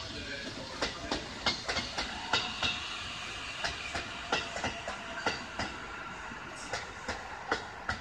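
JR East E531 series electric train pulling into a platform, its wheels clacking over rail joints and points at irregular intervals as it slows.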